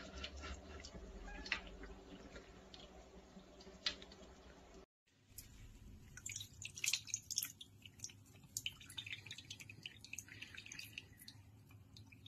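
Thin stream of water running from a bathroom tap into a ceramic basin, with scattered drips. After a short break, faint crackling rustles follow.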